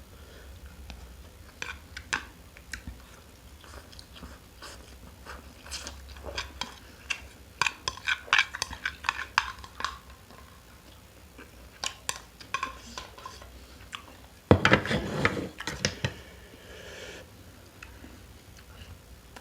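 Close-miked eating sounds of a person eating fried instant noodles: chewing with scattered sharp clicks of cutlery against the plate, and one louder, noisier stretch of about a second and a half about three-quarters of the way through.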